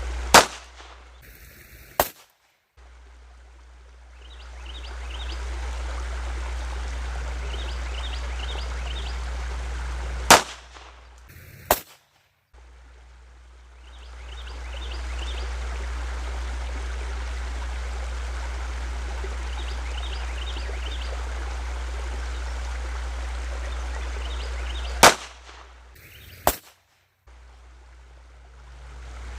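.22 LR gunshots, fired singly about ten to fifteen seconds apart, three in all. Each is followed about a second and a half later by a second, quieter sharp crack. The steady background hiss and chirping birds dip after each shot and slowly come back.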